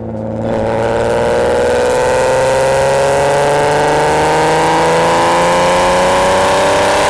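Supercharged Mk4 Volkswagen Golf R32's 3.2-litre VR6 engine and exhaust pulling hard under acceleration, the note swelling in the first half-second and then rising steadily in pitch as it climbs through the revs.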